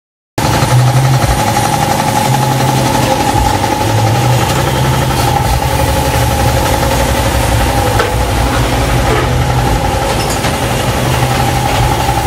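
Belt-driven piston air compressor running steadily, a loud hum with a fast chugging pulse.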